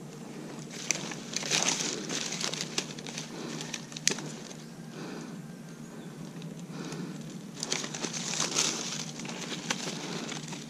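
Palm fronds and leaves rustling and crackling as a tree climber's arm and body push through them, in two bursts, about a second in and again about seven and a half seconds in, with a few sharp snaps between.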